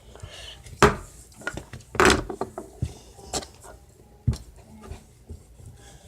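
Hard objects knocking and clattering on a tabletop: about half a dozen sharp knocks, the loudest about a second and two seconds in, with some rubbing between them.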